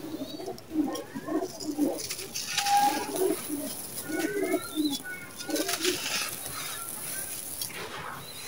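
Dry, gritty sand-and-cement chunks crunching and crumbling in the hands, the grit sifting and trickling down, with birds cooing repeatedly and a few short chirps.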